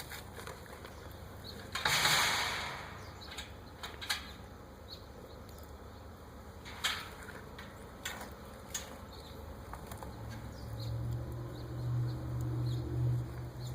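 Metal gate hardware being handled, with a rustling burst and a few sharp knocks as the gate is swung shut and the latch piece is lined up. About ten seconds in, a low, steady motor hum starts and swells and eases, from the power driver starting to drive the latch screws.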